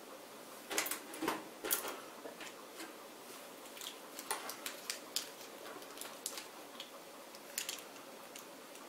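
Screwdriver driving screws into the back of a computer case to mount a power supply: irregular small metallic clicks and knocks, a cluster of louder ones a second or two in.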